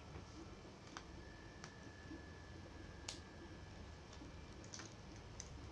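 Faint, sparse clicks and taps of a metal ice cream scooper working sticky cookie dough, knocking against the mixing bowl and snapping its release lever, with one sharper click about three seconds in.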